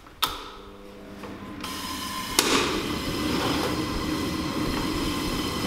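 Portable gas-fired forced-air heater being started. A click comes about a quarter second in and the fan spins up. The burner lights with a sudden pop about two and a half seconds in, then runs with a steady rush of fan and flame.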